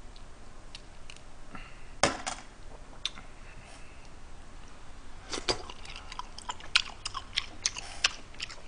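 Close-up eating sounds of steamed gooseneck barnacles: chewing, with sharp clicks and cracks of shell being pulled apart by hand. There is a loud pair of clicks about two seconds in and a run of quicker clicks near the end.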